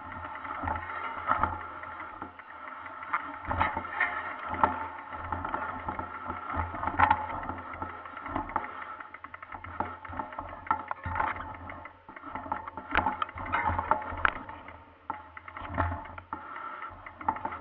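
Mountain bike rattling and clattering down a rough forest trail, its tyres running over dry leaves and sticks, with irregular sharp knocks from bumps throughout.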